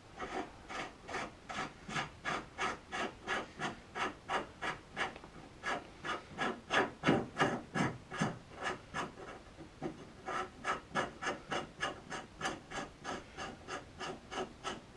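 Rhythmic strokes of a hand file rasping on steel, about three a second, with a brief lull about ten seconds in. This is the dressing of the weld-repaired thread on a door hinge stud.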